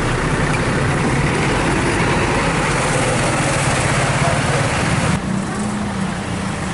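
Tour bus engine running close by with heavy road noise. About five seconds in, the loud upper hiss drops away abruptly, leaving a steadier low engine hum.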